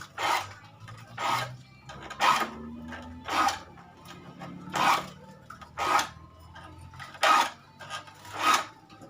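Hand file rasping across the teeth of a dull handsaw to sharpen it, in eight even strokes at roughly one a second.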